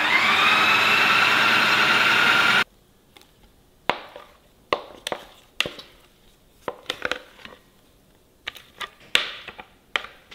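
Food processor motor spinning up to speed, its whine rising in pitch and then holding steady as it mixes a thick tofu batter, cutting off suddenly about two and a half seconds in. Then a string of sharp, irregular knocks and taps of a spatula against a glass bowl as the dough is scraped and turned.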